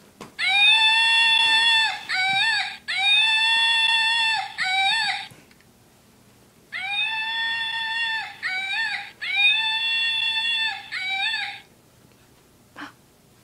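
An electronic sound from a plush toy: a high, steady, squealing phrase in four parts (long, short, long, short), played twice with a pause of about a second and a half between.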